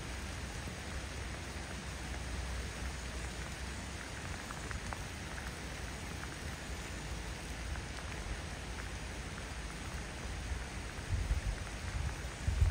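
Steady rain falling: an even hiss with scattered faint drop ticks. A low rumble runs underneath, with a few low thumps near the end.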